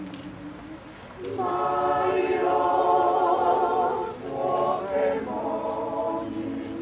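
Amateur choir of older singers singing a cappella in several voices. It sings softly for about the first second, then swells louder.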